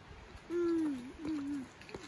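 A toddler's voice: two drawn-out, wavering vocal sounds, starting about half a second in and lasting about half a second each.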